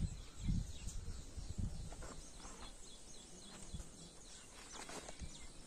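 Outdoor ambience: small birds chirping repeatedly, with irregular low rumbles on the microphone, strongest near the start.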